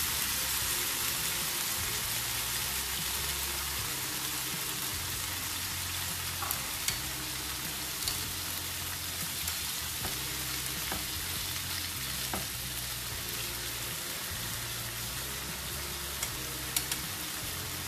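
Tempe and green chillies sizzling steadily in a frying pan in a sweet soy sauce glaze, stirred with chopsticks that now and then click against the pan.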